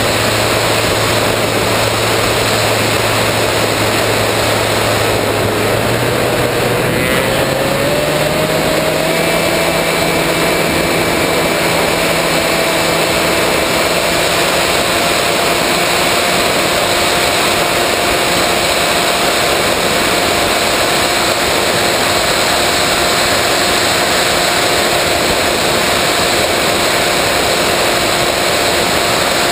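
Electric motor and propeller of a 3 m Rave RC plane running in flight, heard from on board with a steady rush of wind over the microphone. The motor's pitch rises about a quarter of the way in, then holds steady.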